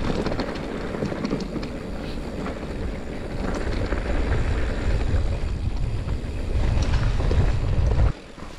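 Wind buffeting the microphone on a downhill mountain-bike ride, over the rumble and clatter of the bike rolling over a rough dirt trail. The noise drops away sharply near the end.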